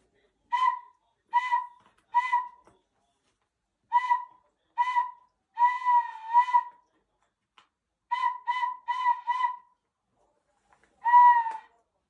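A series of short, high whistled notes, nearly all on one pitch: three evenly spaced toots, then two more and a longer wavering one, then four quick ones, and a single longer note near the end.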